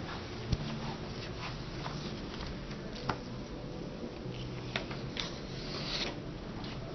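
Quiet classroom room tone: a steady low hum with scattered small clicks, knocks and paper rustling as students write. One slightly longer rustle comes about six seconds in.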